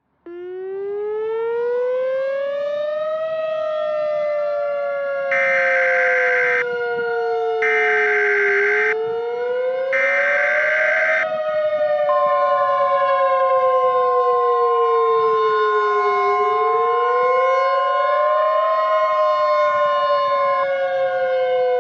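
A civil defense siren starts suddenly and wails, slowly rising and falling over a cycle of about fifteen seconds. About 5 to 11 seconds in, three one-second bursts of Emergency Alert System header data tones sound over it. Then the National Weather Service's steady warning alarm tone is held for about eight seconds.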